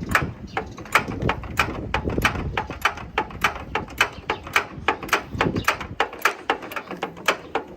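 A string of sharp mechanical clicks, about three a second at an uneven pace.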